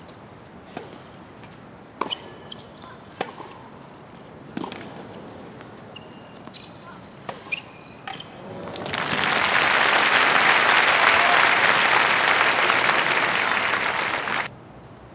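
Tennis ball struck back and forth off rackets in a baseline rally, a sharp pock about every second and a quarter. Then a crowd applauds loudly from about nine seconds in, cut off abruptly near the end.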